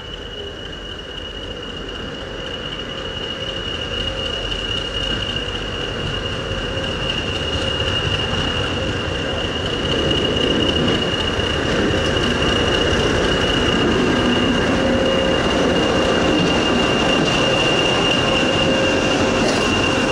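BR Class 20 diesel-electric locomotive approaching and running slowly past, its engine noise growing louder over about ten seconds and then holding steady close by. A steady high whistle sits over the engine rumble throughout.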